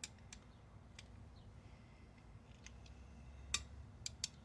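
Faint, scattered clicks and ticks of a Phillips screwdriver tightening the screw of a metal hose mender clamp, the loudest click about three and a half seconds in.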